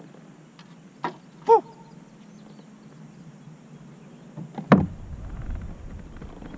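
Handling knocks against a plastic sit-on-top fishing kayak: a click about a second in, a brief squeak just after, and a louder thump near the five-second mark followed by a low rumble.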